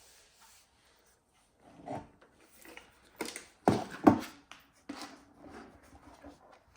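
Scattered knocks, clicks and rubbing as parts and packaging are handled, the loudest knocks about four seconds in.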